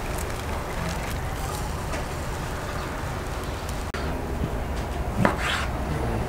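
Soaked chickpeas tipped from a glass bowl into a pot of broth. Then, about four seconds in, a knife cutting raw meat on a wooden cutting board, with one sharp knock of the blade on the board soon after. A steady low rumble runs underneath.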